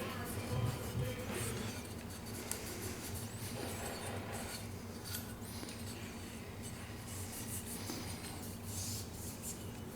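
Cloth rubbing along the outside of a Remington 870 12-gauge shotgun barrel as it is wiped down with cleaner, with faint scattered clicks and clinks of the gun being handled.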